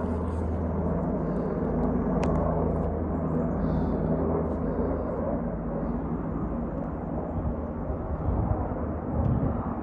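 Two UH-60 Black Hawk helicopters flying over, their rotors and turbine engines making a steady low drone.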